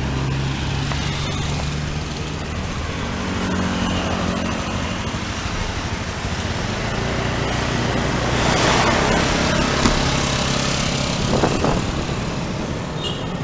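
City road traffic heard from a moving bicycle: the steady engine hum of motorcycles riding close by, over road and wind noise, with a louder rush of passing traffic about eight to ten seconds in.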